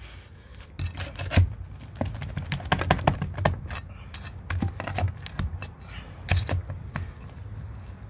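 Steel flat bar working under asphalt shingles to pry out roofing nails: sharp metallic clicks and taps in several short clusters.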